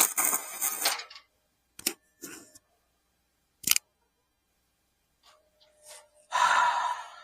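Metalworking at the bench: a short burst of rough noise, two sharp metal clicks, then another loud burst of rough noise near the end.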